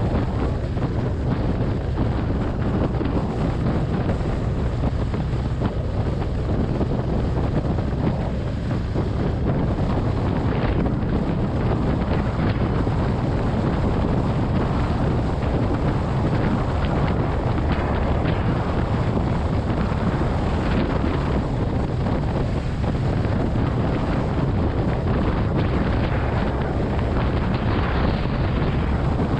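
Steady wind noise on the microphone of a camera riding on a moving motorcycle, a constant low rush with the motorcycle's running underneath and no change in pace.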